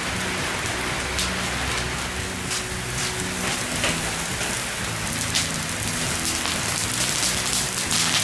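Beef slices sizzling hard on a grill grate lowered close to glowing charcoal: a steady hiss with frequent crackles and pops of spitting fat.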